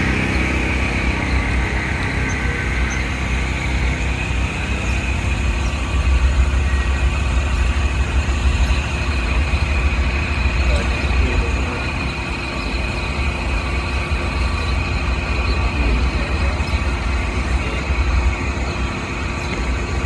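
Amtrak diesel-hauled passenger train rumbling as it approaches the bridge, the low rumble growing stronger partway through, with a steady high-pitched tone above it.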